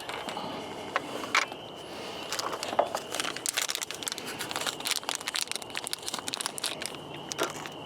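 Rapid clicks and crinkling of plastic parts being handled, typical of headlight bulb sockets being twisted and pulled out of a riding mower's headlight housing, thickest in the middle, over a faint steady high tone.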